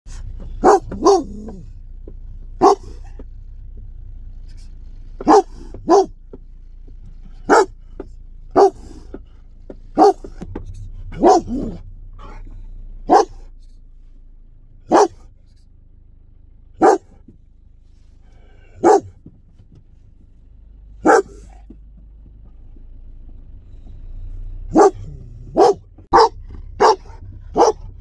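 German shepherd barking inside a car: single deep barks with gaps of a second or more, then a quicker run of barks near the end. A low steady hum runs underneath.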